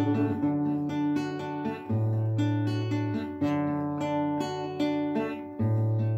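Nylon-string classical guitar with a capo, played as a picked chord accompaniment with no voice: steady plucked notes over a low bass note that changes every one and a half to two seconds.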